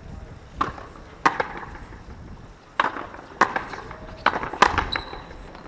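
A frontenis rally: about six sharp smacks at irregular intervals as the rubber ball is struck by the players' strung rackets and rebounds off the frontón wall.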